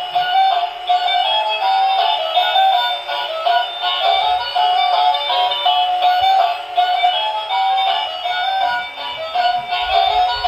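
Electronic tune with synthesized singing from a battery-powered musical toy vehicle, heard through its small speaker: thin, with almost no bass.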